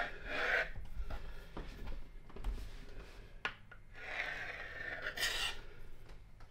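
Knife drawn through rolled-out dough and scraping along the wooden table: a short rub right at the start and a longer one of about a second and a half near the end, with a few light knocks in between.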